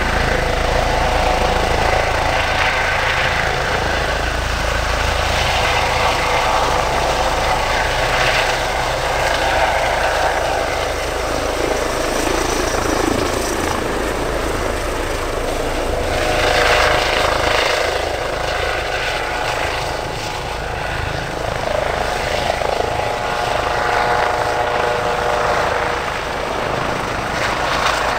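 Lifeliner 3 air ambulance helicopter, an Airbus H135 with a fenestron tail rotor, hovering low and flying off: the twin turbines whine steadily over the rotor beat, swelling briefly about two-thirds of the way through.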